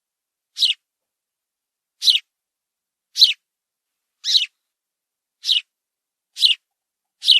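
Sparrow chirping: seven short single chirps, about one a second, with silence between them.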